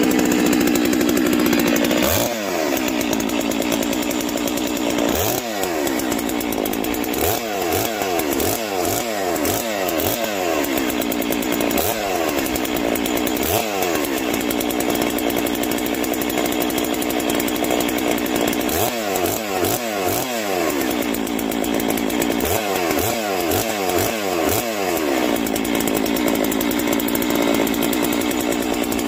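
Farmertec Holzfforma G660 92cc two-stroke chainsaw running in freezing cold after a cold start on factory carb settings. It runs steadily for about two seconds, then is revved again and again in quick blips, each rev falling back to a lower speed.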